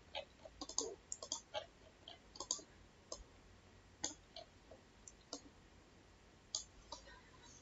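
Faint, irregular clicking of a computer mouse, a dozen or so short clicks spread unevenly.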